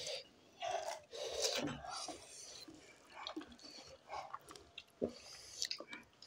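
People slurping jjajang buldak instant noodles and chewing, wet mouth sounds coming in short irregular bursts.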